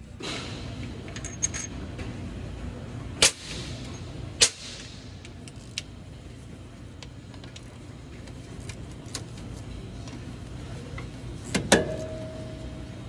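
Metal clinks and knocks of a hand tool and steel timing gears being handled: two sharp clicks a few seconds in, scattered lighter ticks, and near the end a loud clank that rings on for about a second. A steady low hum runs underneath.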